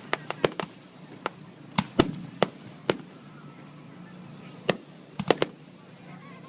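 Aerial fireworks shells bursting: about a dozen sharp bangs at irregular intervals, bunched in the first three seconds and again after a lull of a second and a half.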